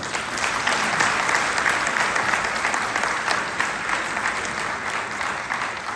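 Audience applauding, swelling over the first second and slowly tapering off.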